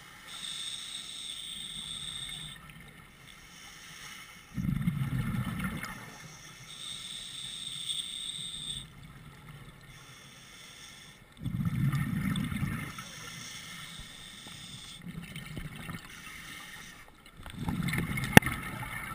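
Scuba diver breathing through a regulator: a steady hissing inhalation of about two seconds, then a louder, low-pitched burst of exhaled bubbles, three breaths about every seven seconds. A single sharp click near the end.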